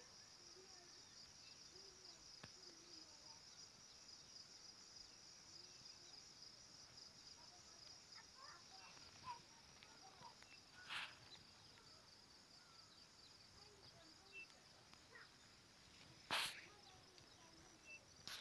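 Faint, steady, high-pitched trill of an insect chorus. A short knock comes about eleven seconds in, and a louder one near the end.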